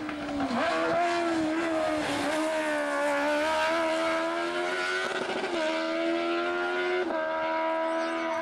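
Race car engine at full throttle, pulling away uphill. The pitch climbs, then drops sharply at each upshift, about three times.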